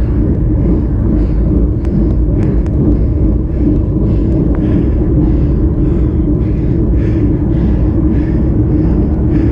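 Steady wind and road rumble on the microphone of a camera riding on a moving road bicycle, with a faint hiss that comes and goes about twice a second.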